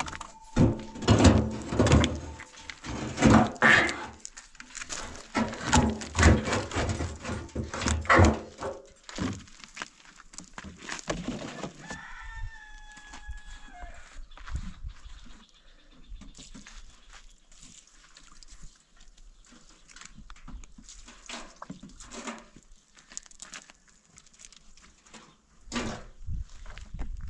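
Heavy chunks of dry wood knocking against each other and against a steel drum as they are packed into it, a run of loud thumps and clunks over the first nine seconds or so. A rooster crows once about twelve seconds in, then only quieter handling follows, with another knock near the end.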